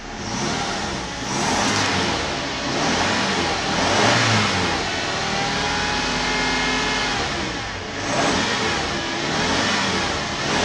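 A 2009 Toyota HiLux's 2.7-litre four-cylinder petrol engine revved up and let fall back several times while stationary, with a stretch of steadier running in the middle, heard from inside the cab.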